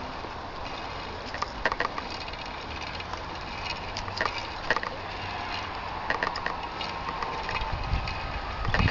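Shallow river water running over a rocky bed, a steady hiss with scattered clicks; a low rumble comes in near the end.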